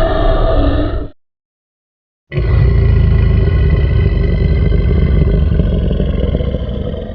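Designed monster sound effects: a roar cuts off about a second in, and after a second of silence a long, low, rough growl starts and slowly fades away near the end.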